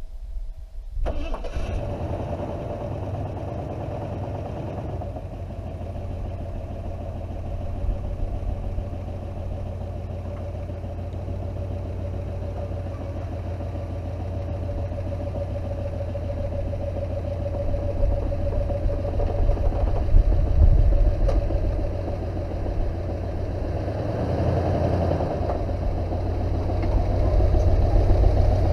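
Ford 4x4 pickup's 351 Windsor V8 running as the truck creeps slowly through soft sand. The engine sound comes in abruptly about a second in, holds steady, and grows louder in the last few seconds as the truck comes close.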